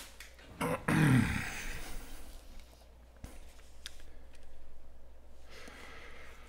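Stack of Panini Chronicles football trading cards being handled, stiff cards sliding and rustling against each other, with a click partway through. About a second in, a man gives a short grunt that falls in pitch.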